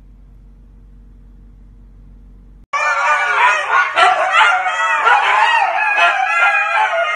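A faint low hum, then nearly three seconds in a group of three huskies starts howling together all at once, several wavering voices overlapping and rising and falling in pitch.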